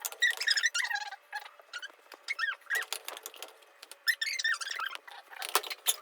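A series of short, high-pitched squeaks and chirps that glide up and down in pitch, with a sharp click a little before the end.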